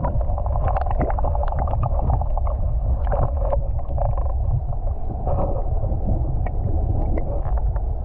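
River current heard through a submerged camera: a muffled, steady low rushing with many small clicks and ticks scattered through it.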